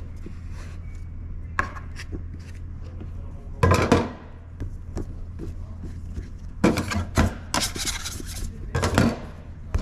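Pizza dough being handled on a work surface: several short bursts of scraping and rubbing, loudest about 4 s in and again from about 7 to 9 s in, over a steady low hum.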